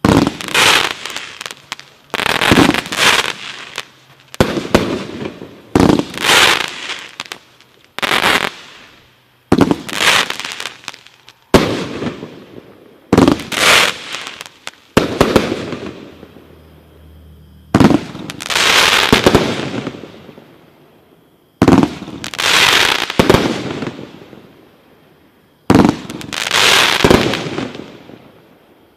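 Black Cat consumer fireworks going off: a series of sharp bangs, about one every one to two seconds and sometimes in quick pairs, each dying away over a second or so.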